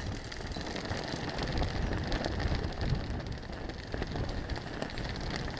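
Outdoor wind buffeting the microphone in irregular low rumbling gusts, over a steady rustling hiss with fine ticks.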